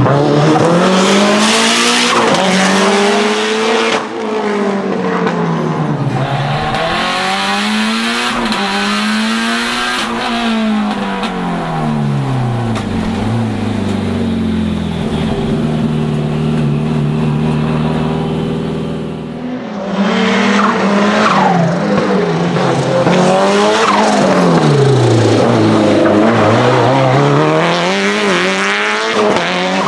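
Tuned 500 hp Lancia Delta HF Integrale Evo 2's turbocharged four-cylinder engine, revving up and dropping back again and again under hard acceleration and braking. Midway it holds a steadier, lower note for several seconds, then goes back to rising and falling revs.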